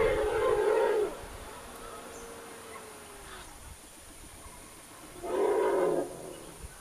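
Wild Asian elephant giving two loud, rough calls, one lasting about a second at the start and a shorter one about five seconds in.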